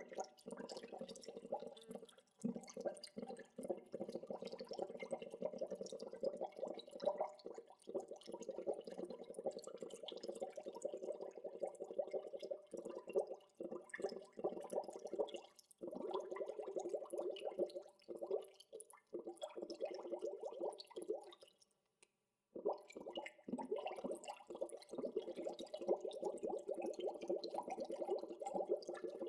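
Gentle bubbling water: a steady stream of small bubbles popping and gurgling. It drops out for about a second roughly three quarters of the way through, then resumes.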